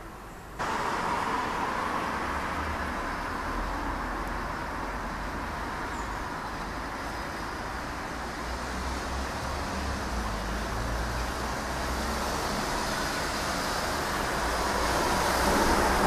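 Steady noise of city road traffic, starting abruptly about half a second in and growing a little louder toward the end.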